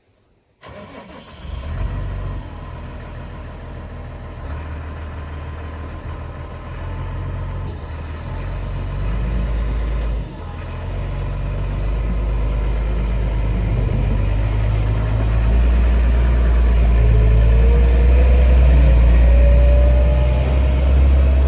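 A heavy engine running with a deep rumble, growing louder and rising in pitch over the last few seconds as it revs up.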